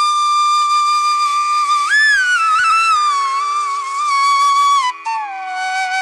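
Background music: a single melody line of long held notes that slide and bend in pitch, over a steady low drone.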